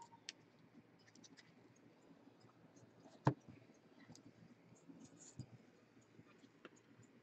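Faint scratching and small clicks of trading cards being handled, with one sharper tap a little over three seconds in.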